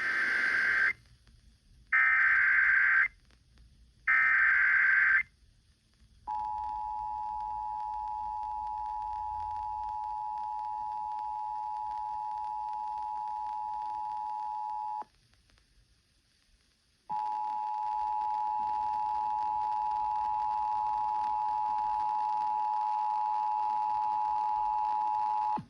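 Emergency Alert System tones. First come three one-second bursts of SAME digital data warble, then the steady two-tone EAS attention signal. The attention signal breaks off for about two seconds partway through and then sounds again.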